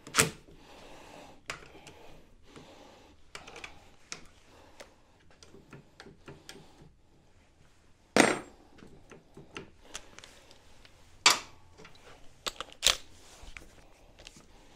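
Hand tools and metal parts being handled at a scooter's brake lever: scattered light clicks and knocks, with four louder sharp knocks spread through.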